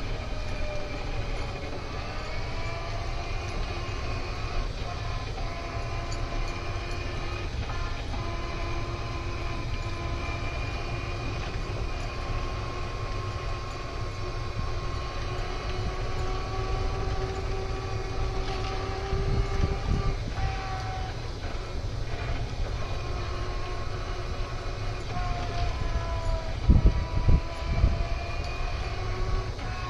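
Golf cart driving slowly: a steady low rumble with several whining tones that slowly drift in pitch as the speed changes. A few heavy low thumps come about two-thirds of the way through and again near the end.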